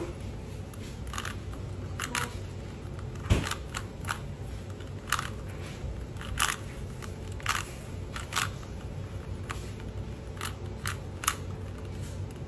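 Rubik's cube being twisted by hand: the plastic layers click and clack at an irregular pace, with one louder knock about three seconds in.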